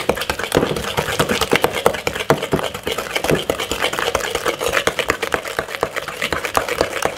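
A wooden spoon beating creamed butter, sugar and egg in a glass mixing bowl: rapid, uneven knocks of the spoon against the glass, several a second, with the wet slap of the batter.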